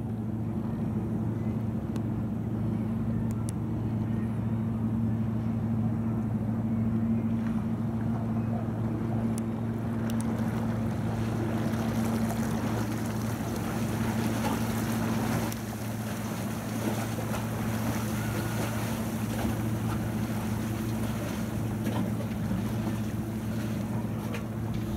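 Small fishing boat's diesel engine running steadily under way, a low hum that holds one pitch. Rushing wind noise on the microphone joins about ten seconds in.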